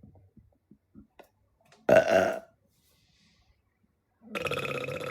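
A woman burping: one short, loud burp about two seconds in, then a long, drawn-out burp on a steady pitch that begins near the end.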